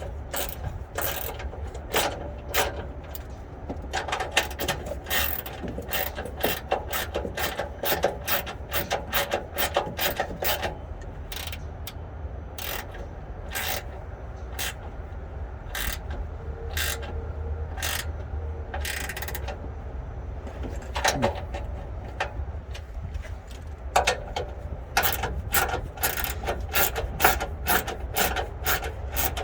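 Hand ratchet clicking in quick runs of strokes as it drives in the bolts of an underbody shield being refitted. The clicking thins out to a few scattered strokes in the middle, then comes quick again near the end.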